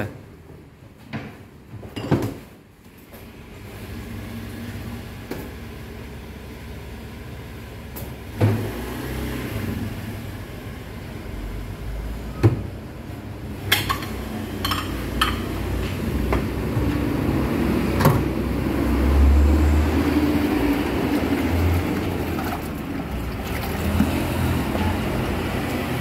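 Scattered light clinks of spoons and ceramic bowls as a bowl of soto is assembled, over a low steady rumble that swells about three-quarters of the way through.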